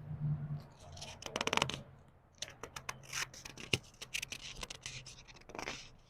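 Book pages being turned slowly by hand: paper rustling and crackling in a few separate bursts, with a softer swish of a page near the end.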